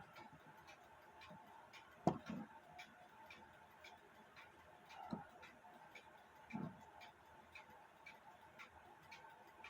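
Faint, even clock ticking at about two to three ticks a second, with a few louder knocks and taps as the small alarm-clock movement is handled while its hairspring is adjusted.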